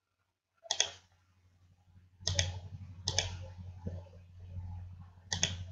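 Four computer mouse clicks: one about a second in, two close together in the middle and one near the end, over a faint low hum.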